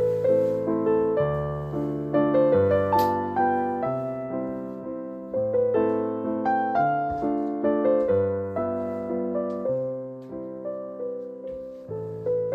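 Background piano music: a gentle melody of decaying notes over steady bass chords.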